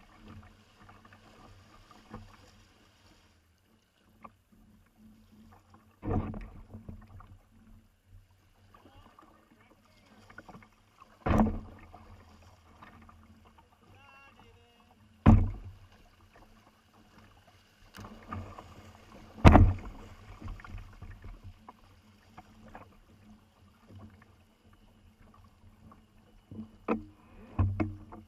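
Kayak out on the river: a low wash of water and hull noise, broken by five sharp, loud knocks spaced a few seconds apart.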